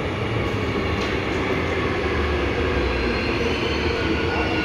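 Incheon Subway Line 1 electric train rolling into the station and braking, a steady rumble with a faint high whine over it.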